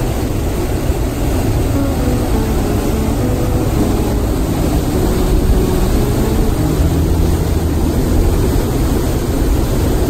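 Steady roar of a waterfall and river rapids, a dense rushing noise heaviest in the low end, with soft background music laid over it.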